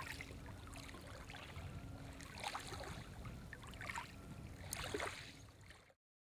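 Faint water lapping and splashing in small waves, with a few louder slaps and a steady low rumble underneath, fading out shortly before the end.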